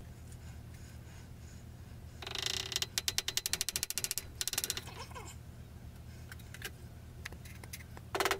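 A burst of rapid ratcheting clicks, about a dozen a second, starting about two seconds in and lasting a couple of seconds, as a wooden handle is twisted onto the rough metal tang of a draw knife; a shorter rasp comes near the end, over a low steady hum.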